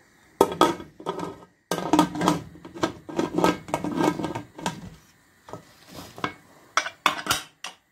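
Aluminium pressure cooker lid clattering and scraping against the pot's rim as it is put on and closed, in a series of metal knocks.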